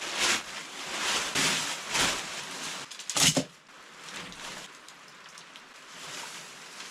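Rain pattering steadily, with a few louder noisy swells in the first three and a half seconds, the sharpest about three seconds in, then quieter and even.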